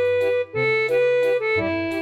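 Background music: held melody notes over a bass line, the notes changing about every half second to a second.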